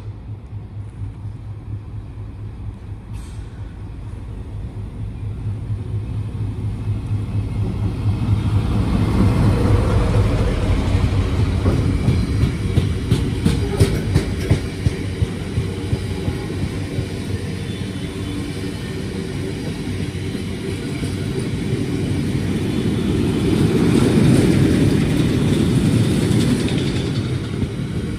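Colas Rail Class 70 diesel locomotive, with its V16 engine, approaching and passing at speed at the head of a train of oil tank wagons, growing loud to a peak about ten seconds in. The tank wagons then roll steadily past with their wheels clicking over the rail joints, swelling again near the end.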